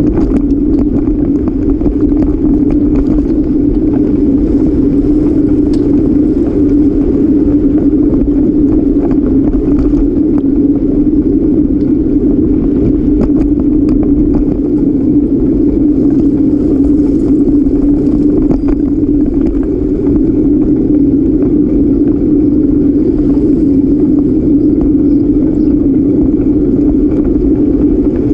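Steady, loud rumble of wind and road vibration picked up by a camera riding on a moving bicycle, with small rattles and clicks from the bike over the pavement.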